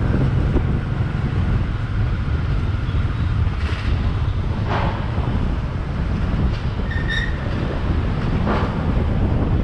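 Motor scooter running at low street speed, with wind rumbling on the microphone as it rides. A few brief sharper traffic noises, including a short high beep about seven seconds in.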